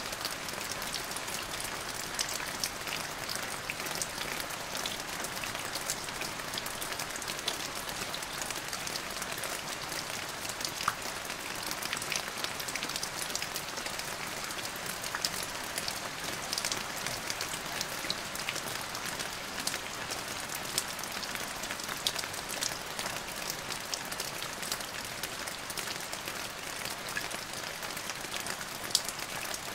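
Steady rain falling: an even hiss with many sharp ticks of separate drops scattered through it.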